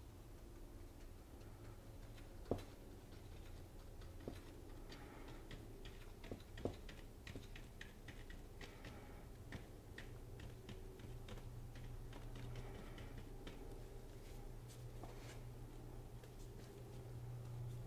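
A paintbrush dabbing acrylic paint onto a canvas, faint: a run of quick, soft ticks with a couple of louder knocks in the first seconds, over a low steady hum.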